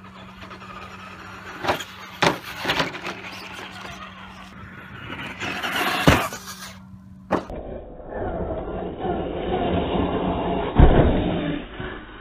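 Radio-controlled Traxxas Slash 2WD truck with a brushed 12T Titan motor running on a dirt track: whirring motor and gears with several sharp thumps from the chassis landing and bouncing in the first half. Then a steadier run up to the jump ramps, with a loud knock near the end as it hits the ramp.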